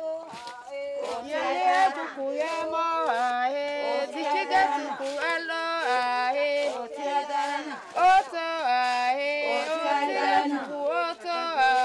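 Singing in a high voice, a melody of long held notes that slide from one pitch to the next.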